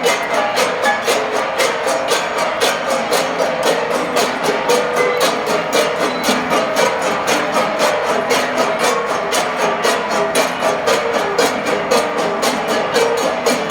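An ensemble of Cordillera flat gongs (gangsa) beaten in a fast, even rhythm of about five strokes a second, the gongs ringing together in several overlapping pitches.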